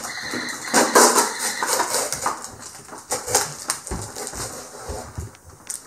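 Clear packing tape being pulled off a cardboard box: irregular ripping and crackling in several short pulls, the loudest about a second in, with small knocks and rustles of hands on the cardboard.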